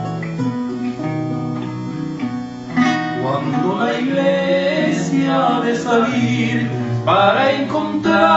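Two acoustic guitars playing a plucked introduction; about three seconds in, a man's singing voice comes in over the guitars.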